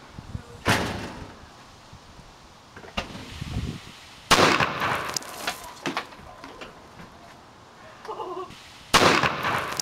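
A 2-litre plastic bottle dry ice bomb bursting with one loud bang about four seconds in, as carbon dioxide from dry ice in hot water overpressures the sealed bottle. There are other sharp loud noises about a second in and near the end.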